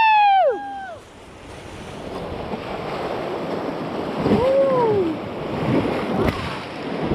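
A loud, high yell that falls away in the first second, then the steady rush of river water and wind on the microphone building up, with a shorter shout about four and a half seconds in.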